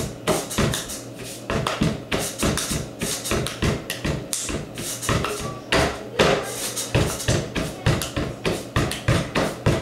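Hands and fists drumming a fast rhythm on a wooden tabletop, bench-beat (bench daruvu) style: sharp knocks, several a second, beating out the rhythm of a Telugu film song.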